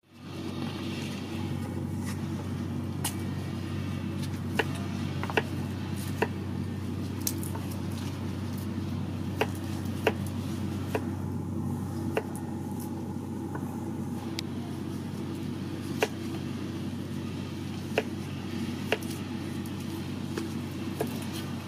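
A cleaver taps on a wooden chopping block as peeled garlic cloves are sliced, giving sharp, irregular taps about once a second. A steady low hum runs underneath.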